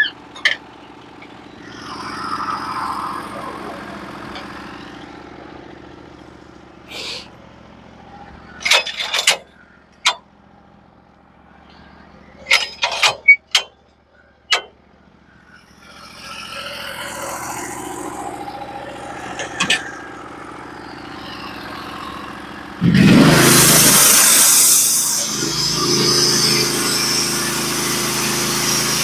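Portable band sawmill's gas engine idling with a low steady hum while a string of sharp metal knocks and clanks sounds as the log is handled on the mill bed. About 23 seconds in the engine revs up loudly and then runs steadily at speed, spinning the band blade ready to cut.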